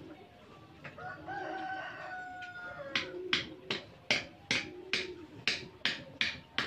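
A rooster crowing: one long call. From about three seconds in, a sharp, even knocking of about three clicks a second takes over and is louder than the crow.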